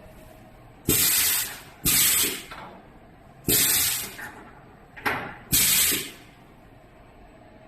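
Compressed air blasting from a gantry machining center in four short hisses, each about half a second long, starting suddenly and tailing off, with a brief extra puff just before the last one.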